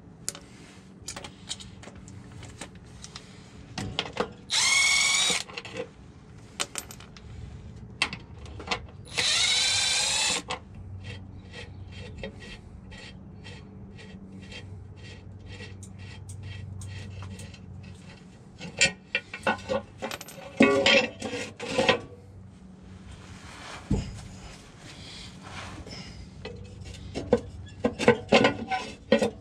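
A cordless power tool whirs in two bursts of about a second and a half, its pitch rising slightly, as bolts are run out of the transmission's bell-housing cover. Between the bursts come scattered sharp metal clicks and clinks of tools and parts being handled, bunched together in two spells later on.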